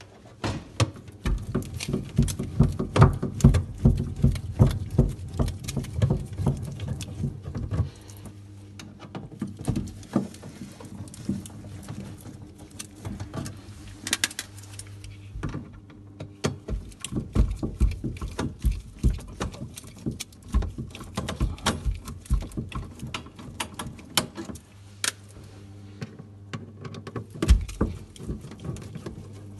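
Irregular clicks, knocks and plastic-and-metal rattling of hands working on refrigerator parts, busiest in the first several seconds, over a steady low hum.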